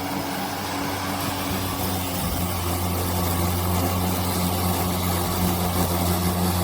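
Cordless electric lawn mower running with a steady low hum from the spinning blade and motor, growing slightly louder.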